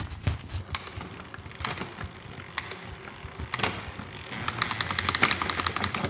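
Mountain bike rear wheel spun by hand in a repair stand: scattered clicks from the drivetrain, then, about four and a half seconds in, a fast, even run of ratcheting ticks from the rear hub and chain.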